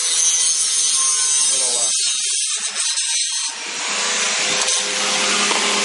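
Steel being worked in a welding shop: a loud, steady, harsh hiss with a faint steady tone underneath, thinning out for about a second and a half from about two seconds in, then carrying on.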